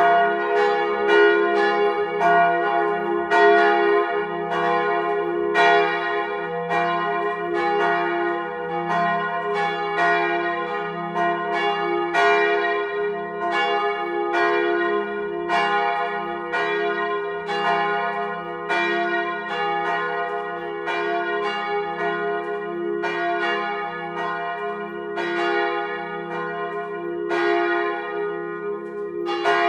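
Three church bells, cast by Petit & Fritsen in 1948 and tuned to F, A-flat and B-flat, swinging on straight axles and ringing together in a full peal, heard close up in the belfry. Clapper strikes come roughly every half to one second in an uneven, overlapping rhythm over a steady ringing hum.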